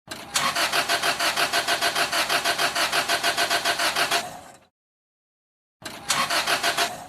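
Car engine being cranked by the starter motor, turning over in a fast, even rhythm without catching: the engine cranks but won't start. About four seconds of cranking, a short pause, then a second attempt near the end.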